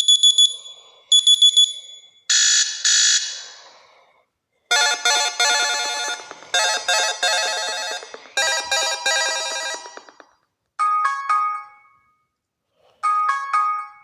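Built-in alert tones of an Amazon Fire HD 13th-generation tablet played one after another through its speaker. There are two quick bursts of high, rapid beeps, then a short chime. A longer melodic phrase follows and repeats three times, and near the end comes a short chime heard twice.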